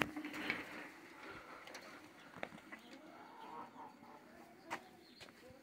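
Faint, soft clucking and murmuring of chickens. A sharp click comes right at the start, and a few fainter clicks follow.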